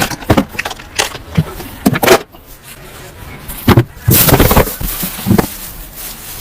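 Irregular sharp knocks, clicks and short scuffing noises, the loudest cluster about four seconds in.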